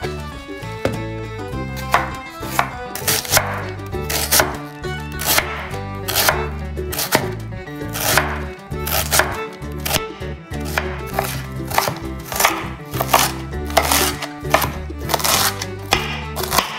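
Chef's knife slicing white cabbage into fine shreds on a wooden cutting board. The blade strikes the board in a steady run of cuts, roughly two a second, starting about two seconds in.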